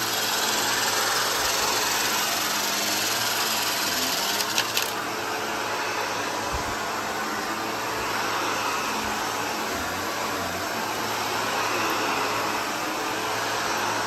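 Upright vacuum cleaner running steadily as it is pushed back and forth over carpet. A brief rattle of debris being sucked up comes about four and a half seconds in.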